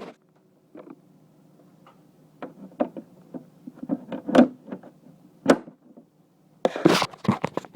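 Irregular clicks and knocks, some in short clusters, over a faint steady low hum.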